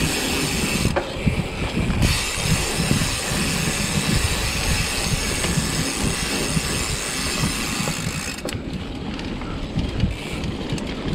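Mountain bike rattling and rumbling steadily as it is ridden over a bumpy dirt trail.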